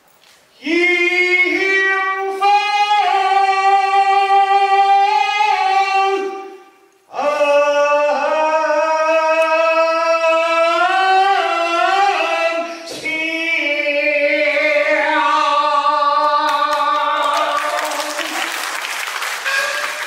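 Beijing opera singing: one voice holds long, sliding notes in two phrases with a short break between them. A clatter of percussion comes in near the end.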